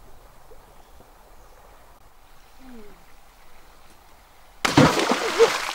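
Quiet background for a few seconds, then a sudden loud splash of water near the end, with a person's short exclamations over it.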